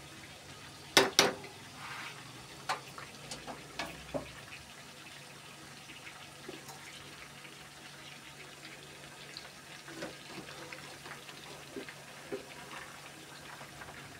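Battered chicken leg pieces deep-frying in hot oil: a steady bubbling sizzle. About a second in, a metal skimmer knocks sharply against the pan twice, with a few lighter clinks over the next few seconds.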